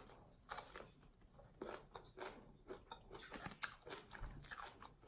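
A person chewing and biting crunchy fried food close to the microphone: faint, irregular crunches.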